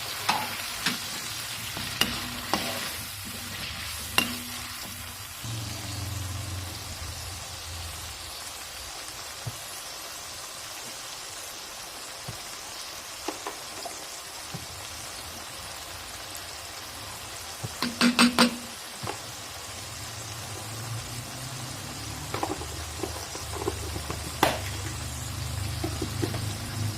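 Vegetables sizzling in hot oil in a pan as a stir-fry of long beans and eggplant cooks. Sharp clicks of a utensil against the pan come now and then, with a quick run of about four clicks about 18 seconds in as the loudest moment.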